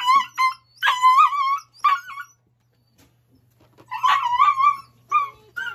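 Japanese-breed dog whining in short, high, wavering cries while held on the exam table: a run of cries in the first two seconds, then more after a pause of about a second and a half.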